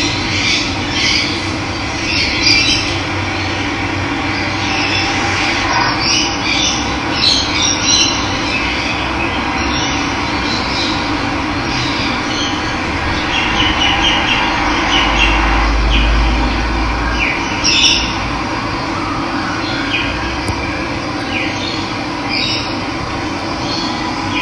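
Steady running water, with birds chirping and calling over it throughout.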